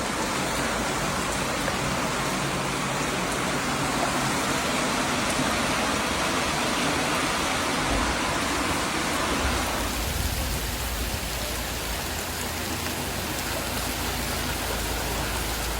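Steady hiss of heavy rain. A low rumble joins about eight seconds in, and the hiss turns thinner about two seconds later.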